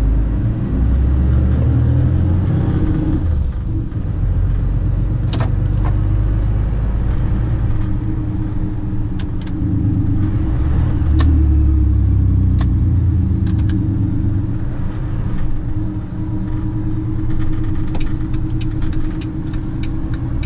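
Volvo FM 340 truck's diesel engine running while driving, heard from inside the cab, its note rising over the first few seconds. Scattered light clicks and rattles in the cab.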